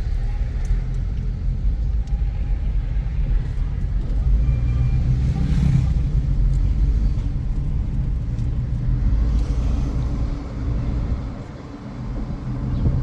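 Car on the move: a steady low engine and road rumble, easing off briefly near the end.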